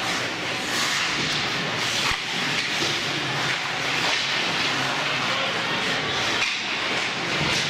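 Ice hockey play on a rink: a steady hiss of skate blades scraping the ice, with one sharp knock about two seconds in.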